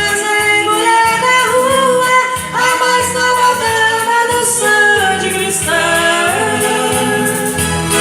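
A Brazilian sertanejo song: singing with held, gliding notes over instrumental accompaniment.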